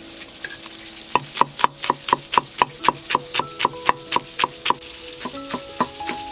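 Cleaver chopping green onions on a wooden chopping block: a steady run of sharp knocks, about four a second, starting about a second in.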